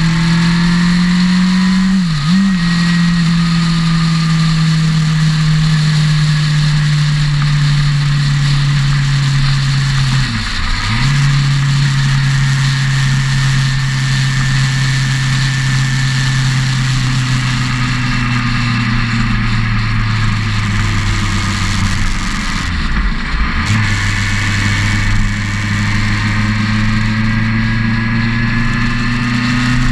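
Motorcycle engine heard from on board the moving bike, running steadily at road speed with wind rushing past. The engine note drops sharply and recovers three times, about two, ten and twenty-three seconds in, as the rider changes gear.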